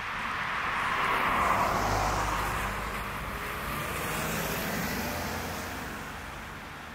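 Street traffic: a car passes on a wet road, its tyre noise swelling to a peak about a second and a half in and fading away. A second, softer swell of traffic noise follows a few seconds later.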